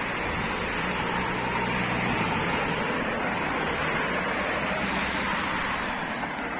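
Team support cars of a cycling race convoy driving past close by: steady engine and tyre noise, with one engine's low hum fading about two seconds in.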